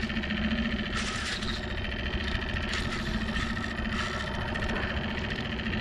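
Small outboard motor on a skiff running steadily at trolling speed, an even hum over a low rumble.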